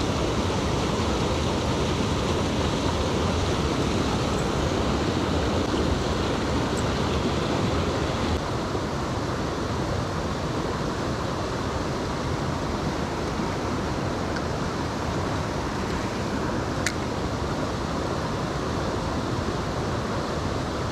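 Steady rush of a fast-flowing mountain stream, slightly quieter after about eight seconds, with one sharp click near the end.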